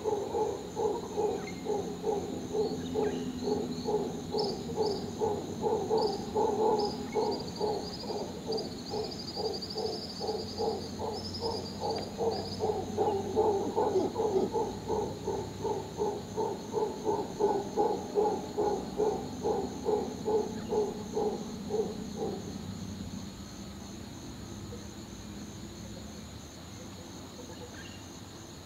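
Mantled howler monkey calling: a long run of deep, rhythmic grunting pulses, about two a second, that stops about 22 seconds in. A few faint bird chirps come through in the first half.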